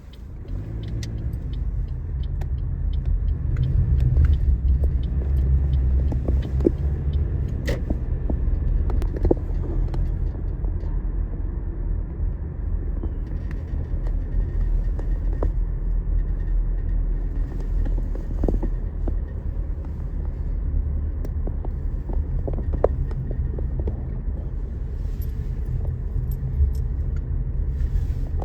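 Steady low rumble of a car on the move, heard from inside the cabin, swelling just after the start as it picks up speed, with scattered light clicks and rattles.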